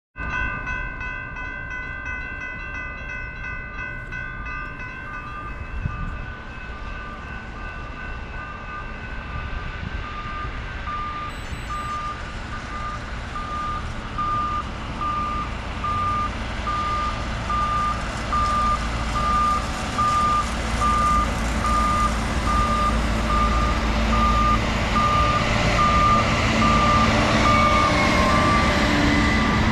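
Railroad grade-crossing warning bell ringing about one and a half times a second, after a steady multi-toned ringing fades out over the first ten seconds. Under it, the engines of approaching Conrail track-maintenance machines, a tamper and a ballast regulator, rumble louder toward the end.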